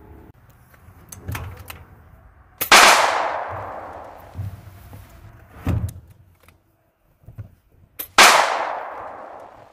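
Two pistol shots about five and a half seconds apart, each with a long echoing tail, with a few lighter knocks and thumps between them.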